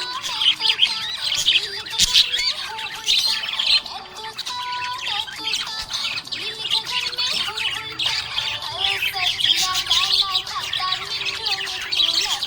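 Budgerigars chirping and warbling continuously in quick, overlapping calls. A melody of steady held notes plays underneath.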